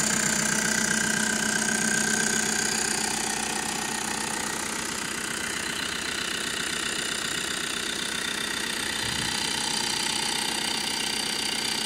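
2021 VW Transporter T6's 2.0 TDI four-cylinder turbodiesel idling steadily, heard over the open engine bay.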